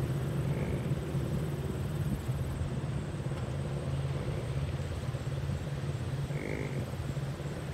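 A vehicle driving: a steady low rumble of engine and road noise, with a short pitched sound about six and a half seconds in.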